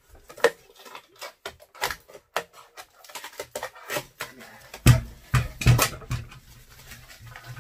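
Scissors snipping at packing foam and plastic, with rustling and clicking as the packaging is cut and pulled away; a few heavier thumps come about five to six seconds in.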